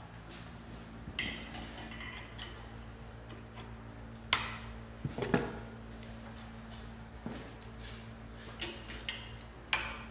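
Vise-grip locking clamps being set on steel square-tube legs in a welding fixture: irregular sharp metallic clicks and clanks, some ringing briefly, as the clamps snap shut and bind. A steady low hum runs underneath.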